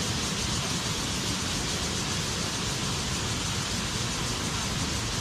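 Steady, even rush of water from a waterfall, with no change in level.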